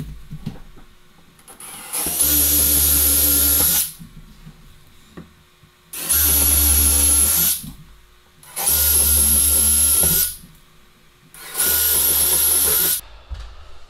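Cordless drill boring holes into a painted wall, run in four separate bursts of about two seconds each, each with a steady high motor whine.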